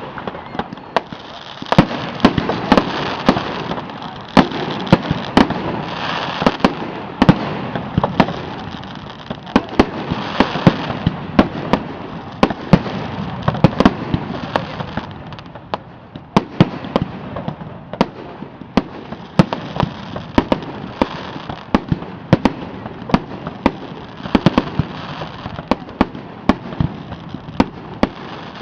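Fireworks display going off in a dense, continuous volley: many sharp bangs a second over a steady crackling hiss.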